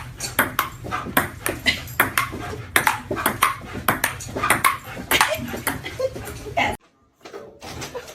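A rapid, irregular series of sharp taps and knocks, about two or three a second, over a steady low hum; the whole sound cuts off abruptly near the end.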